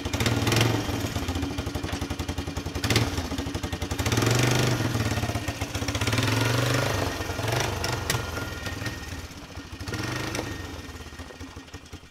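Polaris Magnum ATV's single-cylinder four-stroke engine running just after starting, revved up several times in short swells.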